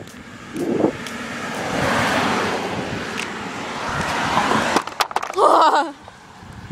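A car driving past on the road, its tyre and engine noise swelling over a few seconds and then fading. A brief shout from a person comes just after it passes.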